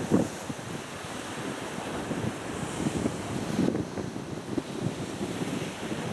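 Wind gusting across the microphone in uneven low buffets, over a steady wash of sea waves.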